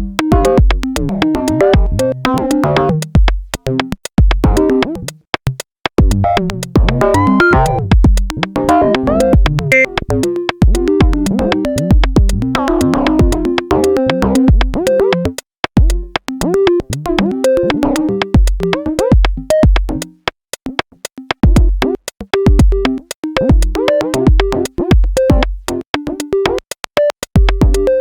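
Electronic music from a VCV Rack software modular synth patch: low kick-drum thumps and dense rapid clicking percussion under stepping synth notes quantized to pitches. The sound drops out briefly about three times.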